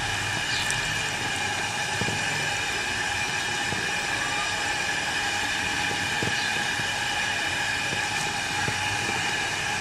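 Steady machine-like whirring hum with several constant tones, holding even throughout, with a few faint soft knocks.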